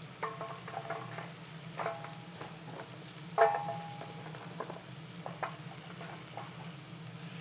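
Pork shoulder searing in a hot pan, its meaty sides being browned, with a steady sizzle. Several metal clinks of tongs against the pan as the meat is turned, the loudest about three and a half seconds in.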